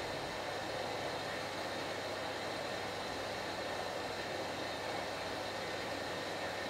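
Electrolux EWF9042R7WB front-loading washing machine running through its wash cycle with a light load: a steady, even mechanical noise that holds at one level.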